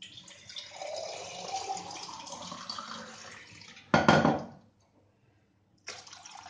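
Water pouring from a glass jug into a metal kadhai, with a loud knock about four seconds in, a short pause, then pouring again.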